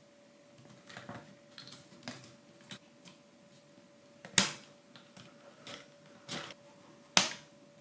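Wooden model-kit pieces being handled and fitted together: a series of irregular small clicks and knocks, with two sharper knocks about four and a half and seven seconds in.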